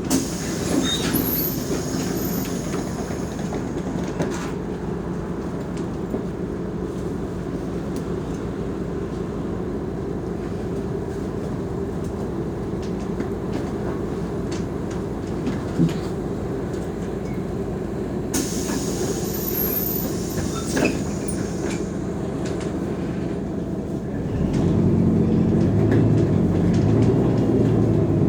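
Mercedes-Benz O345 Conecto G articulated bus running, a steady low diesel drone with scattered rattles and knocks. A hiss lasts about two seconds a little past halfway, and near the end the engine gets clearly louder, as under acceleration.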